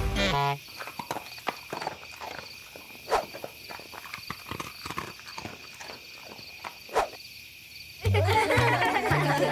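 A run of irregular light clicks and knocks, several a second, with a few louder knocks, after the background music cuts off about half a second in; music comes back near the end.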